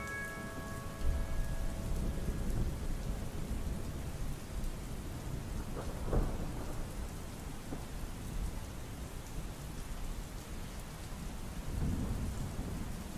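Steady rain falling, with low rolls of thunder: one builds about a second in, a sharper crack comes around the middle, and another roll near the end.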